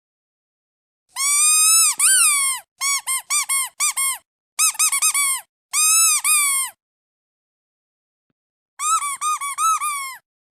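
Squeaky rubber duck toy squeezed in quick runs of high, nasal squeaks, several groups of a few squeaks each with silent gaps between them.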